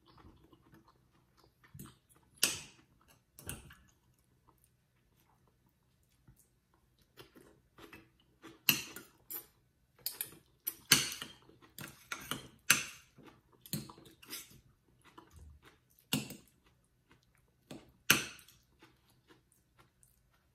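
Metal spoon and fork clinking and scraping against a ceramic soup bowl in irregular, sharp clinks, with quieter eating noises between.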